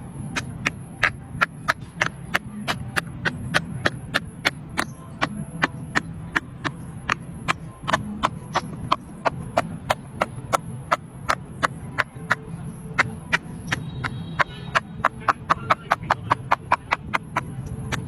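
Bubbles on a silicone pop-it fidget toy being pressed one after another: a long run of sharp pops, about three or four a second, a little faster near the end.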